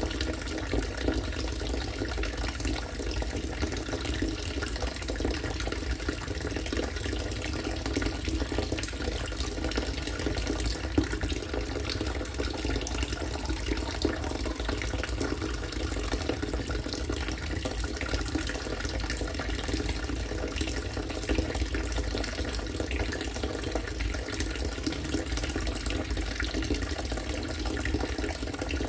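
Harvested rainwater pouring steadily into a collection tank or container, a continuous splashing with a low rumble underneath.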